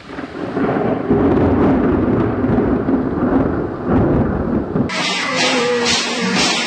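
Thunder rumbling, laid over the opening as a spooky effect. About five seconds in it cuts sharply to loud music with a steady beat from the ghost-train ride.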